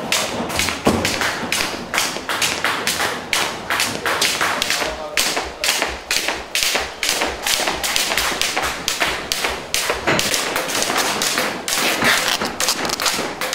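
Skipping rope slapping the concrete floor with the boxer's feet landing, a quick, even rhythm of taps and light thuds.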